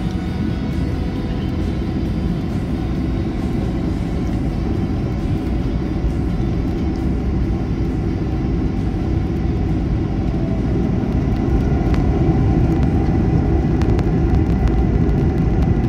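Airbus A220-100's Pratt & Whitney PW1500G geared turbofans at takeoff power, heard from inside the cabin as a loud, steady low rumble through the takeoff roll and liftoff. It grows a little louder about eleven seconds in.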